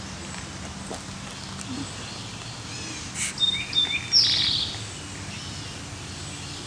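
Wild birds singing over steady outdoor background noise: about three seconds in, a high held whistle, then a buzzy trill that falls in pitch, with a few shorter chirps.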